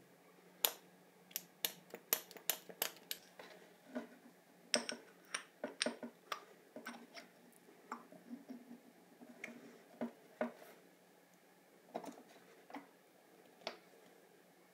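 A run of sharp clicks and taps of small hard objects being handled. Quick and fairly regular for the first few seconds, then irregular and sparser, with a few last taps near the end.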